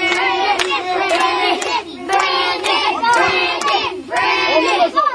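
A group of children cheering and shouting loudly together, with scattered hand claps.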